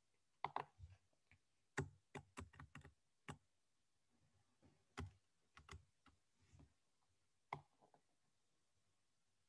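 Faint, irregular clicks from a computer keyboard and mouse as text is deleted and the document scrolled: a bunch of clicks in the first few seconds, then a few more spaced out.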